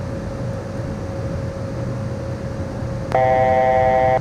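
Steady cabin noise of a Beechcraft Premier 1A business jet in flight, with a faint constant whine. About three seconds in, a loud electronic alert tone made of several steady pitches sounds in the cockpit for about a second.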